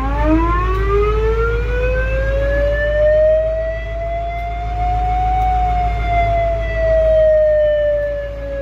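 Mechanical fire-truck siren spun up from a switch in the cab: its wail climbs steadily for about five seconds, then slowly winds down because the siren has no brake. Underneath, the truck's Cat 3208 V8 diesel keeps idling as a steady low drone.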